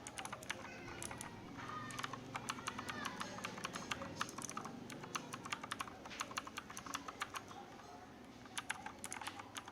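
Typing on a mechanical keyboard fitted with Gateron brown tactile switches: a fast, uneven run of keystroke clicks with a short lull near the end.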